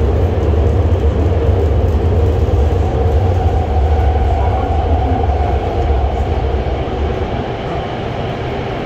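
Hohhot Metro Line 1 train running at speed, heard from inside the carriage: steady running noise over a heavy low rumble, with a faint hum that rises slightly in pitch through the middle. The rumble eases off near the end.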